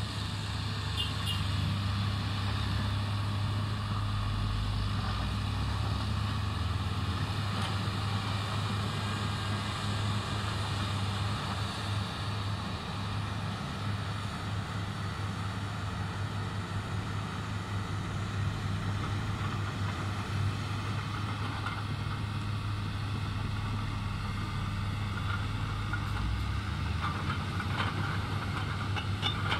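Diesel engine of a Komatsu crawler excavator running at a steady speed as the machine travels on its tracks, with a few light clanks near the end.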